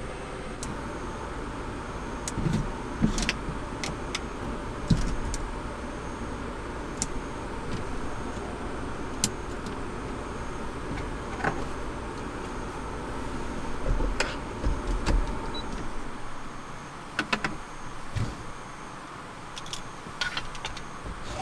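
Steady background hiss with scattered small clicks, knocks and rustles as a person shifts in a sleeping bag and handles small things by the bed. A low hum underneath drops away about two-thirds of the way through.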